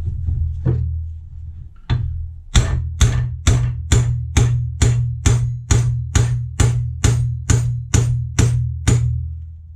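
Hammer striking a steel drift set in the bronze bush of a classic Mini rear radius arm held in a vise, driving the old bushes and needle roller bearing out. One light tap about two seconds in, then about fifteen sharp, even blows at roughly two a second, stopping near the end, over a steady low hum.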